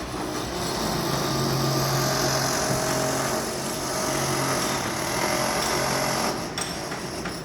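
A motorised machine running steadily, a constant hum with a loud hiss over it, which drops away about six seconds in.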